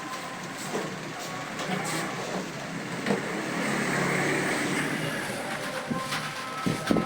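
Scattered computer keyboard key clicks over steady background hum and noise, the noise swelling in the middle.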